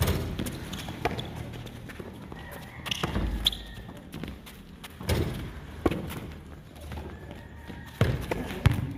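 Irregular thuds and knocks, one every second or two, with heavier ones near the middle and towards the end.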